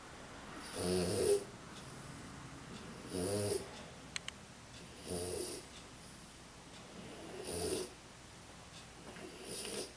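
French bulldog snoring in her sleep: a rasping snore on each breath, about one every two seconds, five in all.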